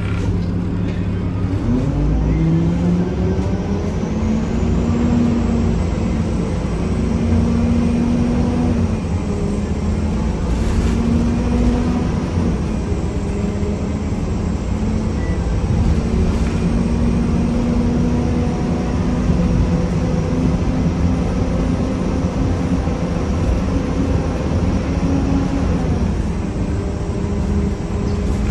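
Diesel transit bus running under way, its Cummins ISM engine and Allison automatic transmission pulling up in pitch from about two seconds in and then holding steady, with a loud grinding noise that the owner suspects comes from the transmission. A faint high whine rises with it.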